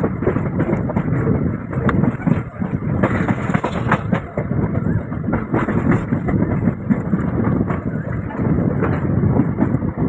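Passenger train running at speed, heard from an open coach door: a steady rumble of wheels on the rails with frequent sharp clicks and clatter.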